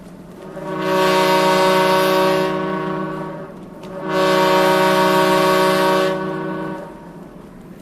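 Truck air horn sounding two long, steady blasts of about three seconds each.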